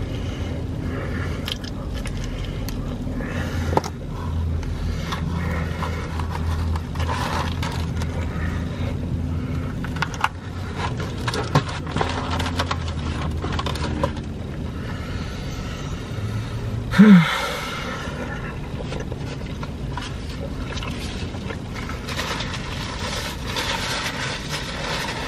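Close-up eating sounds of a person chewing pizza, with scattered clicks and rustling of the box and a paper napkin over a low steady hum. About 17 seconds in there is one short loud throat sound with a brief rising pitch.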